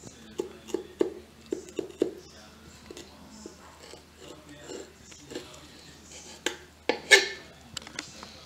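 Kitchen knife cutting through a flathead fillet onto a plastic cutting board, trimming out the rib cage: a run of short, dull knocks as the blade meets the board, with a louder, sharper scrape about seven seconds in.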